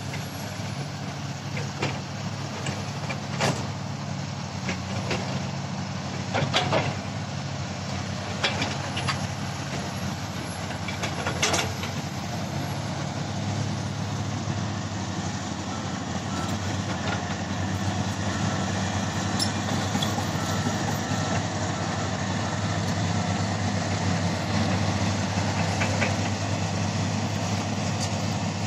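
Diesel engines of a Komatsu crawler excavator and a crawler bulldozer running steadily, with scattered sharp metallic clanks in the first half. A faint repeated beeping comes in about halfway through.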